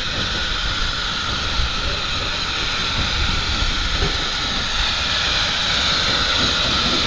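SECR O1-class 0-6-0 steam locomotive No. 65 running slowly into a station with its train: a steady hiss of steam over a low rumble, growing slowly louder as it approaches.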